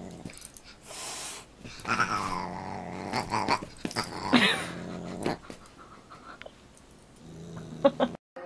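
A fawn pug growling as it play-fights with a Siamese cat, the low growl heard at the start and again near the end. In between come bursts of higher, rising and falling calls and scattered clicks from the scuffle.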